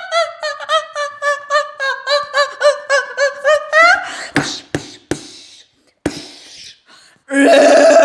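Cartoon vocal effects: a fast run of short high-pitched yelps, about five a second, ending in a rising cry. Then a few sharp knocks, and near the end a loud, steady, low voice-like drone begins.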